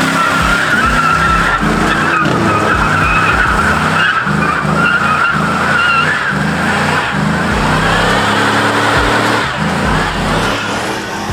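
A car's tyres squealing steadily as it slides around, with the engine revving up and down under throttle blips; the squeal fades a little near the end.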